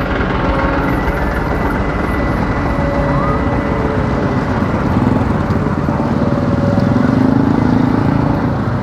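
Excavator's diesel engine running steadily while dredging, getting a little louder from about five seconds in.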